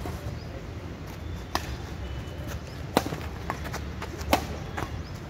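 Badminton rackets striking a shuttlecock in a doubles rally: three sharp hits about a second and a half apart, the middle one loudest, over a steady low rumble.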